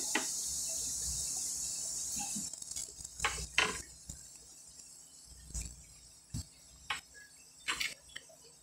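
A utensil clinking and knocking against dishes and food containers: a steady high hiss stops about two and a half seconds in, then about seven short, separate clinks follow.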